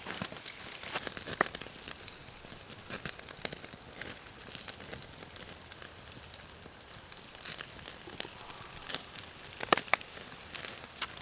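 Campfire crackling, with a steady hiss and scattered sharp pops and snaps that come thicker near the end.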